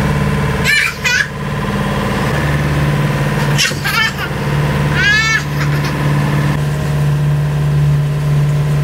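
Sailboat's engine running steadily under way, a low drone. Three short high-pitched cries sound over it: about a second in, near four seconds, and about five seconds in.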